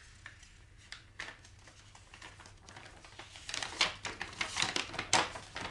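A run of irregular clicks and rustles, like small objects or paper being handled, sparse at first and growing denser and louder in the second half.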